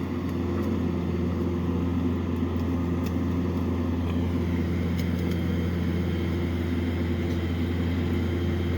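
A steady low mechanical hum, with a few steady tones above it.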